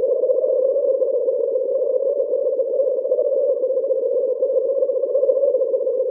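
Synthesized alien-insect ambience sound effect: a steady, fast-pulsing buzzing drone with a fainter higher tone above it.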